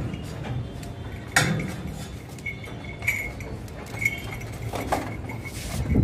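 Goat's hooves knocking and scuffing on concrete steps, with a sharp knock about a second and a half in. A light metallic clinking and a thin ringing start midway.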